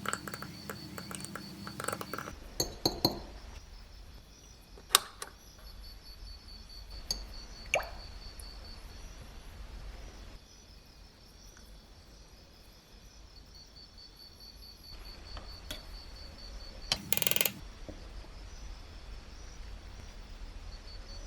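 Scattered light metallic clinks and taps of small metal parts being handled, with a brief quick run of clicks near the end.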